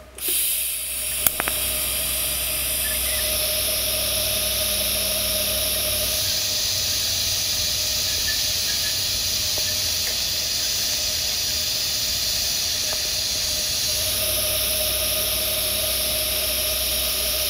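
TIG welding arc hissing steadily on carbon steel pipe during the hot pass, at about 130 amps. It strikes up just after the start, with a sharp click a little over a second in.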